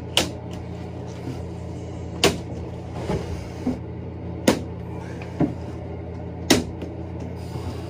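Four sharp blows on the old fiberglass shower enclosure, about two seconds apart, over a steady low hum.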